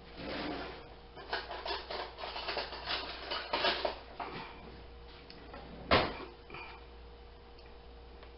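A plastic butter tub being handled while a knife is worked into the butter: irregular light clicks and rubbing for about the first four seconds, then one sharp click about six seconds in.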